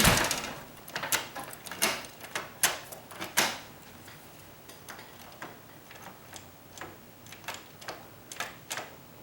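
Deadbolt being thrown and drawn back repeatedly: a loud clack at the start, then sharp metallic clicks and knocks of the bolt going into the strike plate, strongest in the first few seconds and lighter and quicker after. The bolt is still catching ever so slightly on the strike plate.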